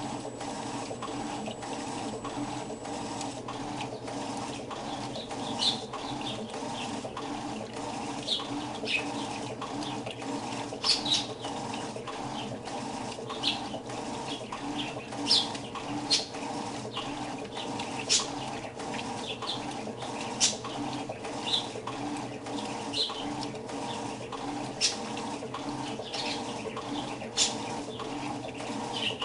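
Electrolux washing machine running with a steady hum and water noise, with short, sharp high chirps every second or two over it.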